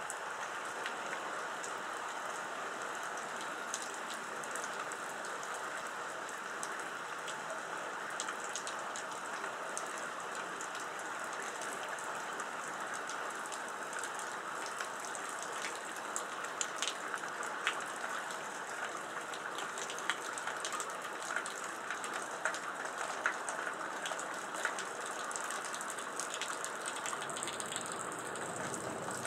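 Steady rain falling, with irregular sharp ticks of drops hitting nearby surfaces, the ticks coming more often in the second half.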